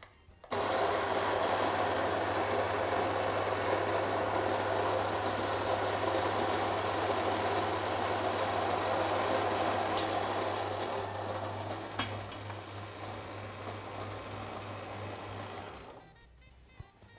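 Electric burr coffee grinder starts suddenly and runs with a steady hum and the noise of beans being ground very coarsely. Near the end it grows quieter and its hum starts to pulse, then it stops.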